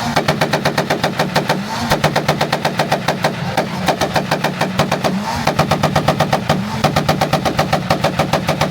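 Car engine held on a two-step launch-control rev limiter, the exhaust firing a rapid machine-gun string of sharp pops, about ten a second. The revs dip and come back up briefly around two, five and seven seconds in.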